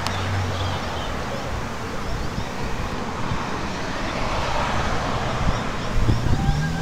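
Car driving past on the road, engine hum and tyre noise, with wind noise on the microphone.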